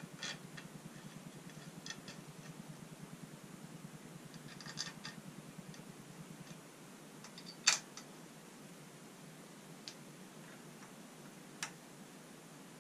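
Faint scattered clicks and light metallic taps from hands and small tools working at a bicycle's stem and handlebar clamp, with one sharper click about two-thirds of the way through. A low hum underneath stops about halfway.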